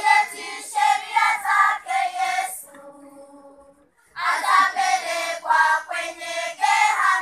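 Children's choir singing, in two phrases with a pause of about a second and a half between them.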